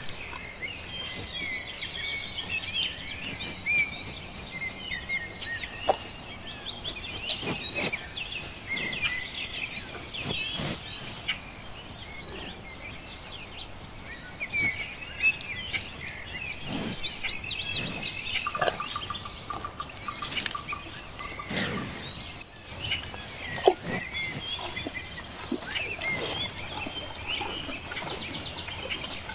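Many small birds chirping and singing over one another in a continuous outdoor chorus, with scattered short clicks. Past the middle, a rapid mid-pitched trill runs for about two seconds.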